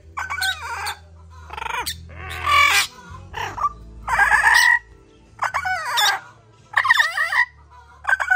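Yellow-naped amazon parrot giving a run of loud, harsh squawks, about eight calls of under a second each with short pauses between, in an agitated, aggressive state.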